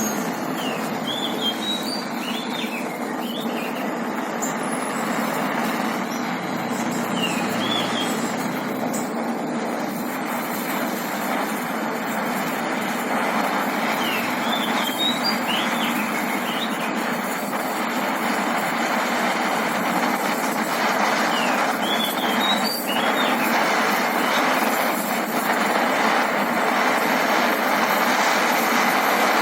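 Portable gas-canister torch flame hissing steadily while brass is brazed onto a leaking steel tank.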